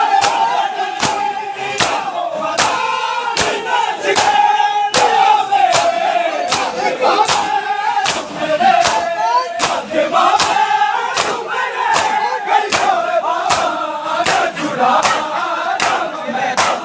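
A crowd of men doing matam: hands slapping bare chests in unison in a steady beat of about two and a half slaps a second, under a noha chanted by many male voices.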